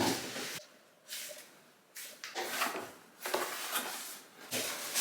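Cardboard box and packing material rustling and scraping in a run of irregular bursts as a compact subwoofer is unboxed.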